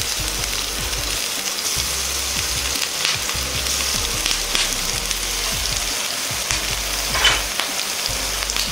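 Julienned carrot, shiitake and wood ear mushrooms sizzling steadily in lard in a frying pan over low heat, with a short sharp tap about seven seconds in.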